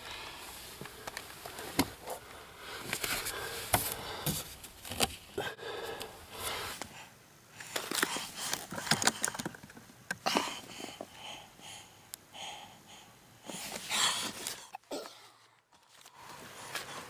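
Irregular rustling, scraping and small knocks of handling and movement around a car's footwell, with a brief quiet spell near the end.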